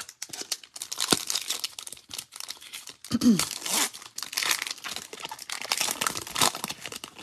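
Foil wrapper of an Upper Deck hockey card pack crinkling and tearing as it is handled and ripped open by hand, a busy run of crackles and sharp ticks.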